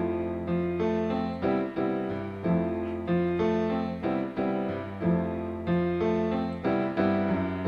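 Instrumental music: piano chords struck in a steady rhythm over a held bass line, with no singing.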